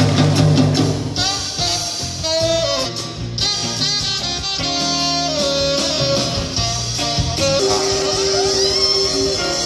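Live jazz-fusion band playing: tenor saxophone on the melody over electric guitar, electric bass and drum kit, with a long held note near the end.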